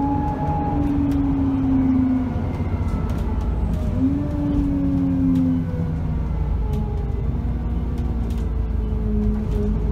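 Alexander Dennis Enviro 400 double-decker bus heard from inside the passenger saloon, its engine and drivetrain running under way with a steady low rumble. A whine rises and holds at the start and again about four seconds in, and after that a fainter tone falls slowly.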